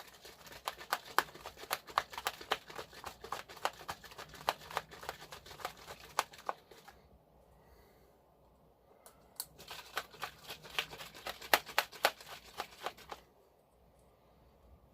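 A hand-shaken container of churned cream, with the agitator inside knocking and the contents sloshing in quick irregular knocks. It comes in two bouts with a pause of about three seconds between them. The cream has separated into butter and buttermilk.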